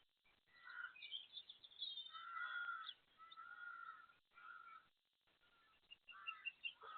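Faint bird calls: a string of short pitched calls with brief gaps between them.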